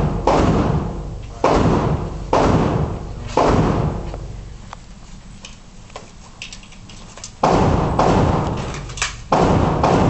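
Schmeisser M5f AR-15-pattern rifle in 5.56×45 mm firing single shots: four shots about a second apart, a pause of about four seconds, then three more shots. Each shot trails off in a long echo.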